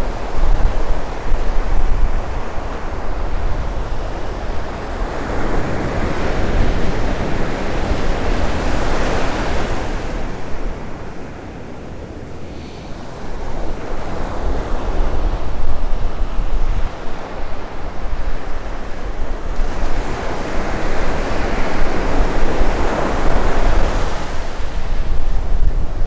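Ocean surf breaking and washing up the sand in long surges that swell, ebb to a lull near the middle, and swell again near the end. Wind buffets the microphone as a steady low rumble underneath.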